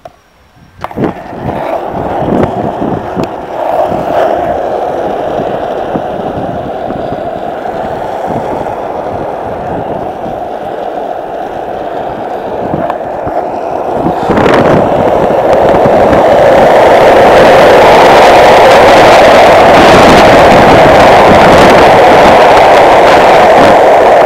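Skateboard wheels rolling on asphalt, a continuous rolling rumble. A few knocks come in the first seconds and another about halfway, and the rolling grows louder about two-thirds of the way through.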